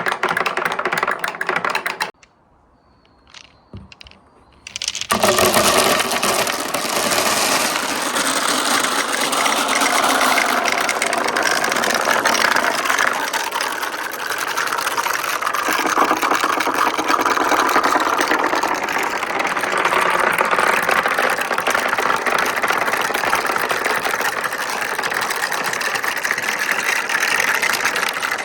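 Many marbles rolling and clattering along a wooden marble run's right-angle track, a dense continuous rattle. It stops about two seconds in, leaving a couple of light clicks, and starts again suddenly about five seconds in.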